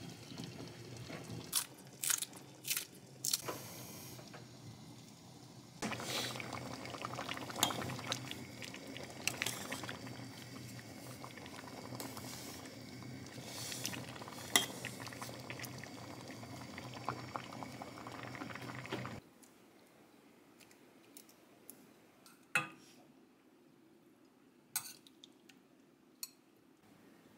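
Food cooking, a steady bubbling haze with scattered clinks of pans and utensils. It grows louder about six seconds in, then stops abruptly, leaving a few quieter clinks.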